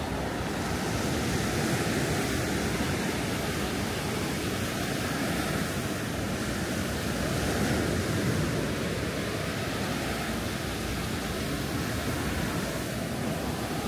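Ocean surf breaking on the beach: a steady rushing wash of waves that swells a little about two seconds in and again about eight seconds in.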